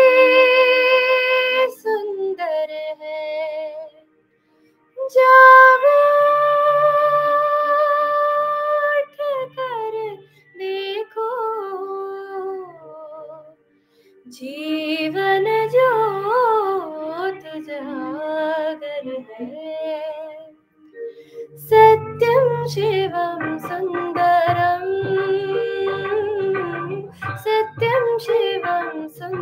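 A young woman singing a Hindi film song solo, with long held notes and ornamented runs, and two short pauses for breath.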